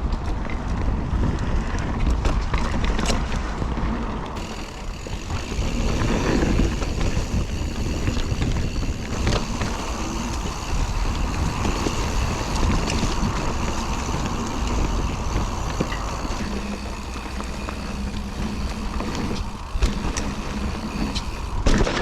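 Mountain bike riding down a dirt trail: wind buffeting the action camera's microphone and tyres rolling over the ground, with a few sharp knocks.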